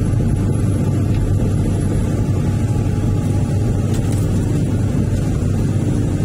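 Excavator's diesel engine running steadily, a constant low drone heard from inside the operator's cab while the machine moves with its bucket raised.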